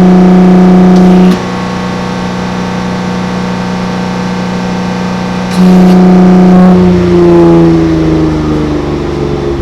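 BMW X5 50e's inline-six through a DCE Parts V2 valved exhaust, held at steady high revs. Just over a second in the note drops sharply in loudness at the same pitch, as the exhaust valves close. It comes back loud about six seconds in, and the revs then fall away steadily.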